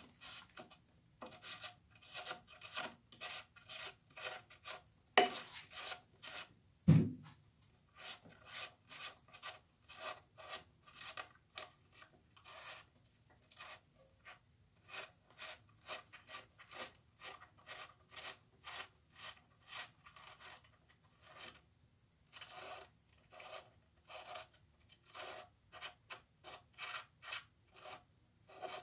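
Rhythmic rubbing or scraping strokes, about two or three a second, from hand work on parts inside a Fordomatic transmission case. Two louder knocks come about five and seven seconds in, the second a low thump.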